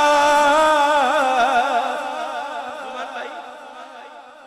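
A man's voice singing a naat through a microphone, holding the last note of a line and ornamenting it with wavering turns. The voice fades away gradually over the second half.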